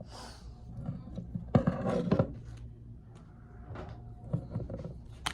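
Workshop handling noises of small parts and tools: a brief rustle near the start, a cluster of clatter and rubbing about a second and a half in, then scattered light clicks and one sharp click near the end.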